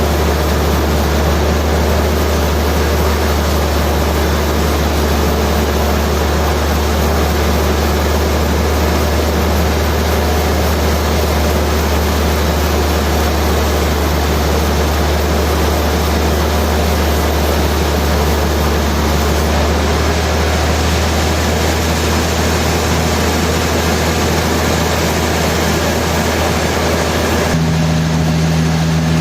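Heavy machinery running with a steady loud low hum and constant mechanical noise. Near the end the sound changes abruptly to a different steady hum.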